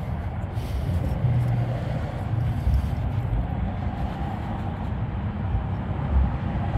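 Steady low rumble of outdoor background noise, with no distinct sound from the work standing out.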